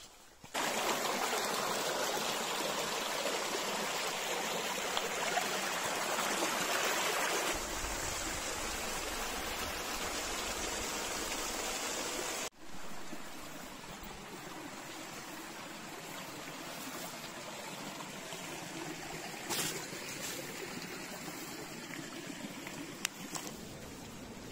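Stream water running steadily, loud at first and then quieter after a sudden change about halfway through.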